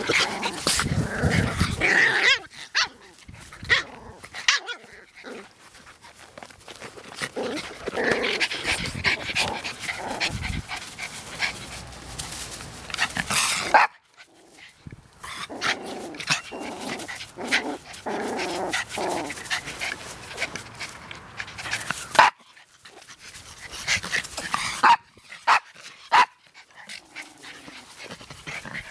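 Miniature pinscher dogs play-fighting, growling and barking at irregular moments. A few sharp knocks stand out as the loudest sounds.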